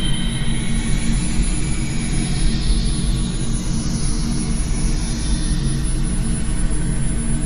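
Dark, noisy drone: a steady low rumble with a hiss that slowly sweeps up and down in pitch, like a jet engine.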